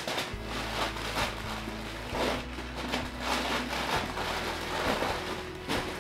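Sheets of packing paper rustling and crinkling in quick, irregular bursts as they are pulled, folded and pressed around china plates to wrap them.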